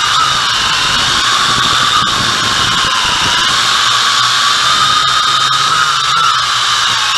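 MJX X101 quadcopter's motors and propellers whining steadily in flight, heard close up from the camera mounted on the craft. The pitch sags a little about three seconds in, then climbs back.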